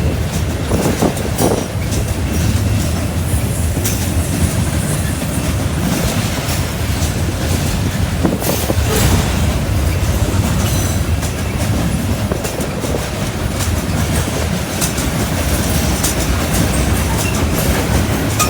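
Freight train cars rolling steadily past at close range, their steel wheels clicking and clattering over the track, with sharp knocks now and then.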